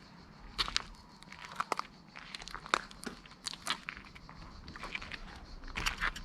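Footsteps crunching, a string of irregular sharp crunches and clicks.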